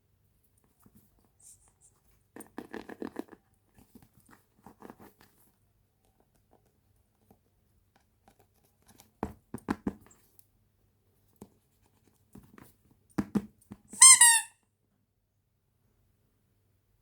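Toy being handled, with scattered short rustles and taps, then one short, loud, high squeak near the end, like a rubber squeeze toy being pressed.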